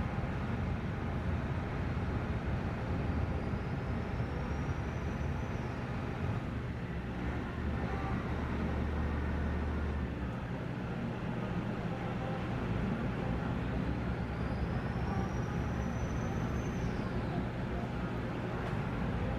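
Magic Kingdom ferry boat under way, its engine giving a steady low drone under an even hiss of wind and water.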